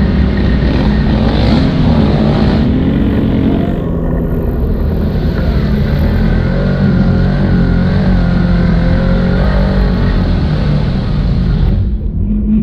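ATV engine running under way on a muddy trail, its pitch rising and falling with the throttle.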